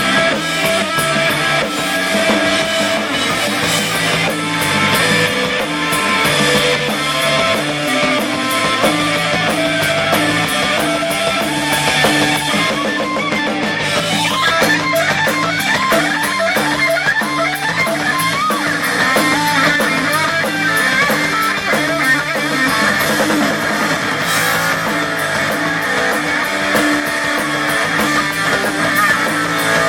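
Rock band playing an instrumental break: an electric guitar lead with wavering, bent notes over bass and drums.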